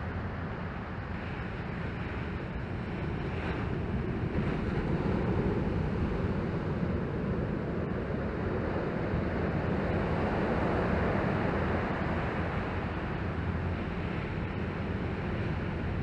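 Typhoon swell breaking as surf and washing over the shallows: a steady rush of whitewater that rises and falls a little as the waves break.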